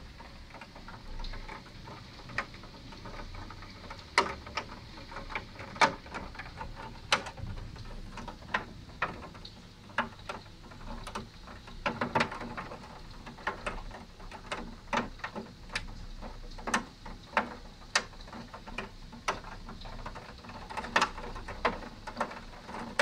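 Hazelnut-sized hailstones striking hard surfaces in sharp, irregular clicks and knocks, a few each second, over a steady hiss.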